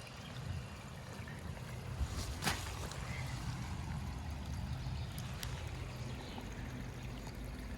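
Running water of a stream swollen by heavy rain, a steady rushing, with a couple of sharp clicks.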